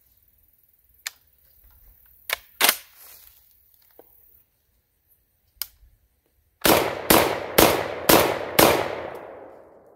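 Black Aces Tactical Pro Series semi-automatic 12-gauge bullpup shotgun fired five times in quick succession, about two shots a second, each shot echoing and the last fading out slowly; a few light clicks of the gun being handled come before the shots. The string empties the magazine, and the bolt locks open on the last round.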